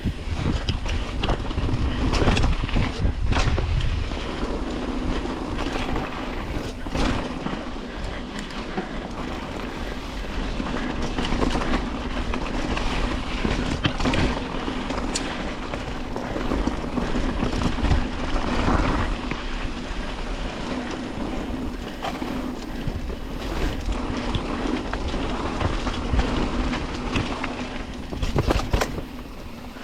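Wheels rolling fast over a rough track, a continuous rattling rumble with frequent small clatters and a steady low hum underneath.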